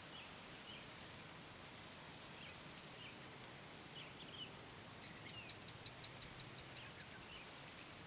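Faint rural outdoor ambience with small birds chirping now and then, and a quick run of ticks a little past halfway.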